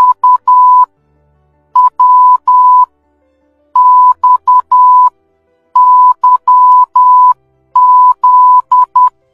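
Morse code beeps at a steady pitch near 1 kHz, keyed in short dots and long dashes in five groups with pauses between them, spelling the letters V, W, X, Y and Z, the end of the Morse alphabet.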